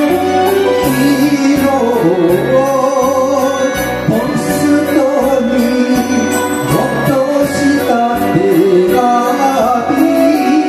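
A man singing a Japanese popular song into a karaoke microphone over a karaoke backing track with a steady beat.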